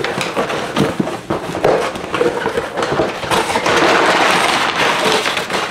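Cardboard shipping box being torn open by hand: packing tape ripping and cardboard crackling, with a longer stretch of dense rustling in the second half as the flaps are pulled open.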